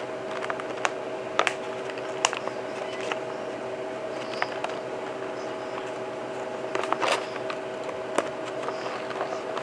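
Scattered crinkles and clicks of plastic packaging being handled as an oxygen absorber packet is taken out and set into a small clear bag, with a brief cluster about seven seconds in. A steady low hum runs underneath.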